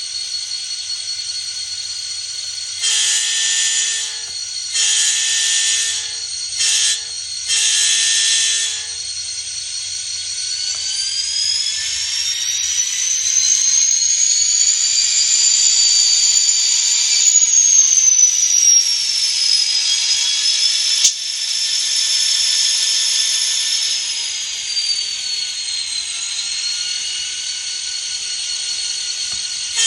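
Model locomotive sound decoder playing EMD diesel sounds through a tiny speaker: a chime horn blows the grade-crossing pattern, long, long, short, long. Then the engine sound's high whine rises and falls back down.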